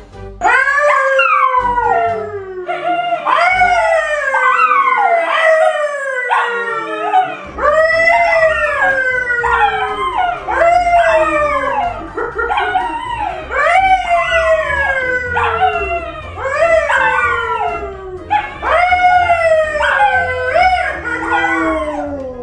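Two dogs howling along with a man who howls with them: a run of long howls that fall in pitch, several voices overlapping, starting about half a second in.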